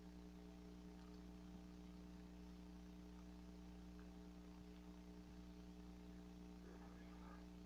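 Near silence: a steady low electrical hum, with a faint soft rustle near the end.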